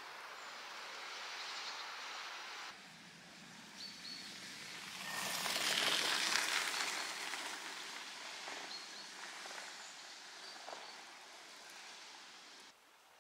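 Outdoor woodland ambience: a steady rush of noise that swells loudly and fades away around the middle, with a few short, high bird chirps. The background changes abruptly twice, as between joined clips.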